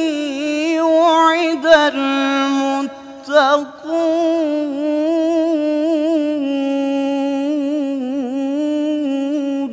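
Male Quran reciter's voice in melodic tajweed recitation. He draws out the syllables on long, ornamented notes, pauses briefly about three seconds in, then holds one long wavering note.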